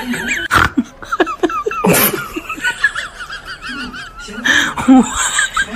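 People laughing in short repeated bursts, with high wavering squeals over the laughter.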